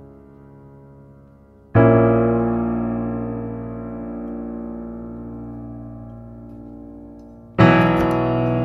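Background piano music: a soft chord struck about two seconds in and left to ring and fade slowly, then another chord struck near the end.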